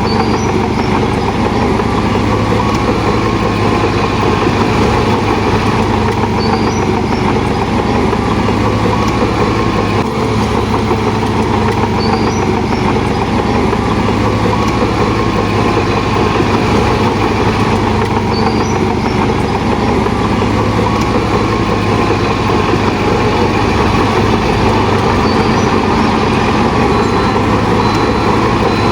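A Shantui DH17 bulldozer's diesel engine running steadily and loudly.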